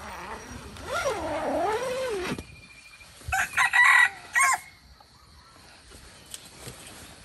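Animal calls: a wavering, drawn-out call, then a loud run of short, high calls about three and a half seconds in.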